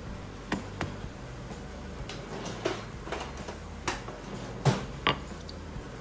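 Scattered light taps and knocks on a floured work board as bread dough is shaped by hand, with two sharper knocks near the end as a wooden rolling pin is picked up and set down on the board.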